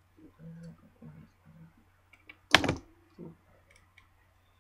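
Plastic snap clips of a BlackBerry Bold 9790's housing popping loose under a pry tool: one sharp, loud snap about two and a half seconds in, with fainter handling sounds before it and a smaller click just after.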